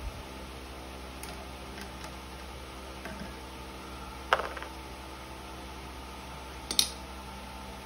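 Two sharp knocks of hard plastic parts, a PVC pipe leg and 3D-printed joint pieces, striking each other as they are handled and fitted, one about four seconds in and a higher click near seven seconds. A steady hum runs underneath.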